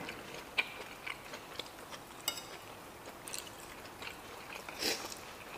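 Quiet eating sounds: a metal spoon clicking against a plate a few times, the clearest a brief ringing clink about two seconds in, with soft chewing between.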